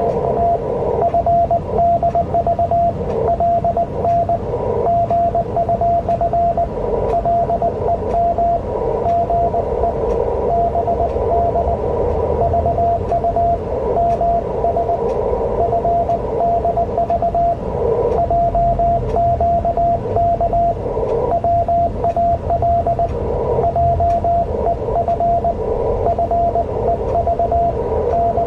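Morse code on an amateur radio CW contact: a steady single-pitch beep keyed on and off in dots and dashes without pause, over the hiss of a ham radio receiver.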